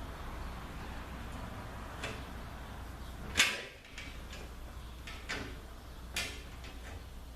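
A few sharp clicks and taps of small metal parts being handled while a ZF 6HP26 transmission valve body is reassembled, the loudest about three and a half seconds in, over a low steady hum.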